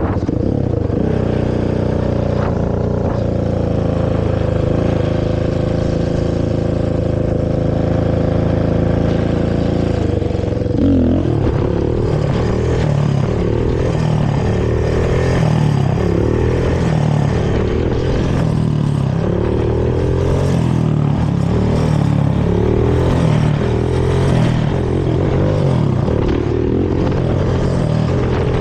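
Honda TRX450R quad's single-cylinder four-stroke engine through its stock exhaust. It holds a steady speed for about ten seconds, then is revved up and down again and again.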